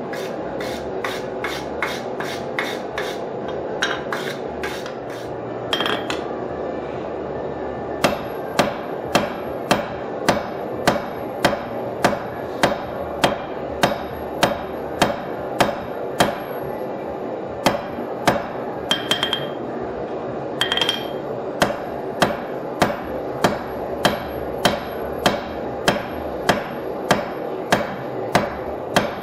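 Blacksmith's hand hammer striking red-hot steel on an anvil, drawing out a knife blank. It starts with quick lighter blows, about three a second, then a pause with a couple of ringing taps. After that come steady heavier blows a little over one a second, with a short break about two-thirds of the way through.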